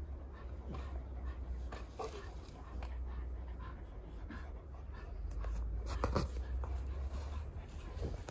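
A large dog panting, with a short whine about two seconds in and a brief louder sound a little after six seconds.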